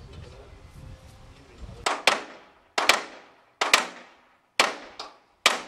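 A long-handled hammer striking the steelwork at the front of a steam locomotive during dismantling. It gives sharp, ringing metal blows, about one a second, starting about two seconds in: six in all, the first a quick double strike.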